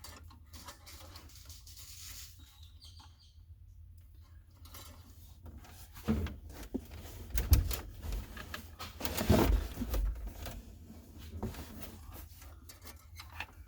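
Scattered knocks, clunks and rustling of hands and body moving about in a truck's cramped footwell, mostly in the second half, the loudest two knocks a couple of seconds apart.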